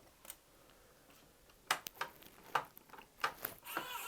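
Scattered sharp clicks and light taps of small PC parts and hardware being handled, several in a row in the second half, with a rustling starting near the end.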